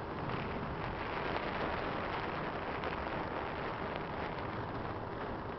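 Wind buffeting the microphone: a steady rushing hiss with fine crackle.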